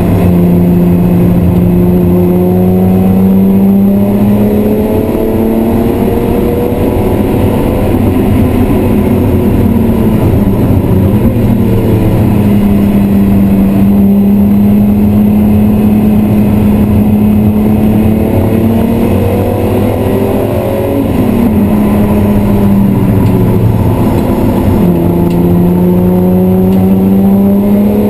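BMW E36 M3's 3.0-litre straight-six engine running hard under load, heard from inside the cabin. The engine note holds high and climbs slowly, with the revs dropping and rising again around ten seconds in and again around twenty.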